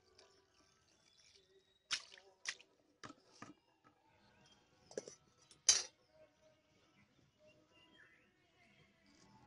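A stainless steel bowl of washed potato sticks being handled, giving about six sharp clinks and knocks in two clusters, around two seconds and around five seconds in; the last knock is the loudest.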